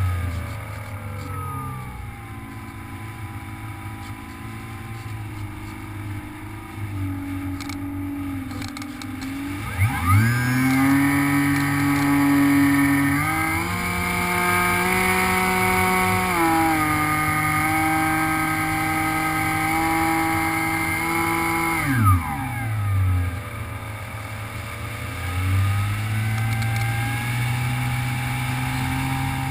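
Electric motor and propeller of an HK FPV Raptor RC plane whining in flight. About ten seconds in the throttle goes up and the pitch rises sharply, holds high with small steps, then falls back to a lower cruise about twenty-two seconds in.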